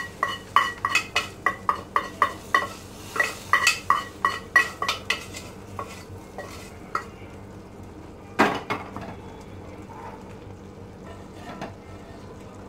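A wooden spoon scraping and knocking against a tipped aluminium pot as fried onions in oil are scraped out into a curry, about two to three knocks a second with a metallic ring. After about five seconds the knocks thin out, with one louder knock about eight seconds in, and then quieter stirring.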